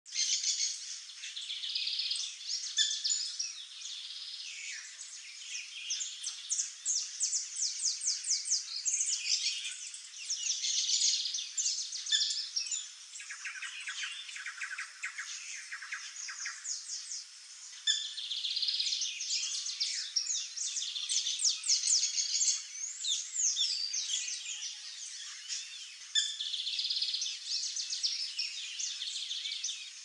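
Saffron finches singing: phrases of quick, high chirping notes and rapid trills that come again every few seconds without pause.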